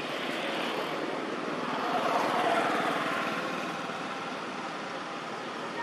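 Engine noise of a passing vehicle, swelling to its loudest about two and a half seconds in and then fading.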